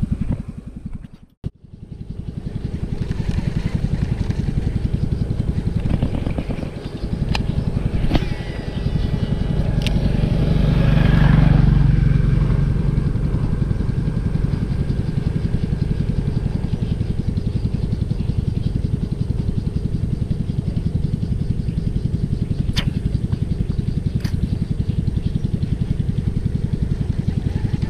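Small engine running steadily, swelling louder for a couple of seconds about ten seconds in, then settling back to an even drone.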